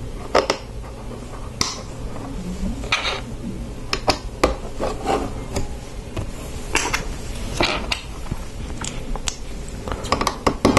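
Plastic Lego bricks clicking and clattering as pieces are picked from the table and pressed onto a model, in irregular sharp clicks.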